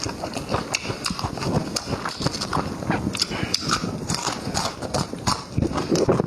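Close-miked eating: chewing and lip smacking, with many quick, irregular wet clicks.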